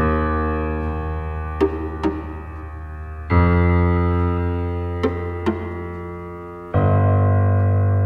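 Background piano music: slow held chords, a new one struck about every three and a half seconds, with a pair of short notes sounding between them.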